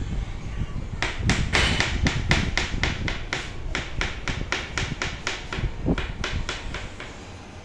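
Kitchen knife chopping on a cutting board in a fast, even rhythm, about four strokes a second, starting about a second in, over a steady low background rumble.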